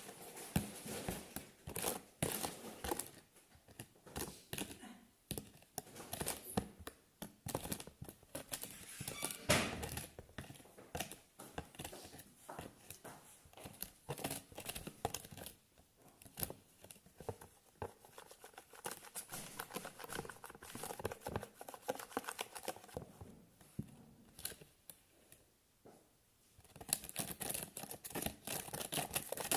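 Close handling noise from slime-making materials: an irregular run of small crackles, clicks and crinkles, like plastic being handled and worked by hand.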